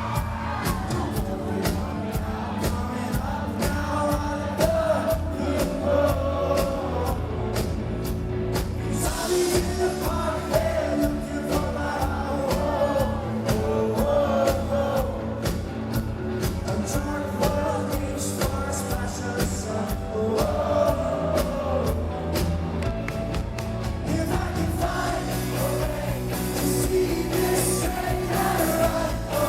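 Rock band playing a song live, with a lead singer over the full band and a steady drum beat.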